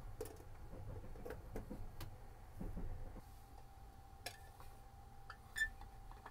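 Small plastic clicks and taps as a phone charger is plugged into a wall socket, then clicks as a pull-out ashtray drawer under a counter is slid open, the loudest and sharpest about five and a half seconds in. A steady low hum sits underneath.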